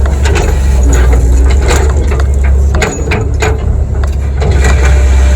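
Kobelco SK85 excavator engine running with a steady low drone, with repeated knocks and scrapes as the bucket works dirt and rock.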